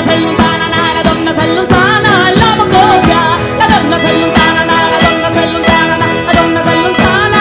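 Salento folk band playing live, with a woman's voice singing over the accompaniment and a steady beat.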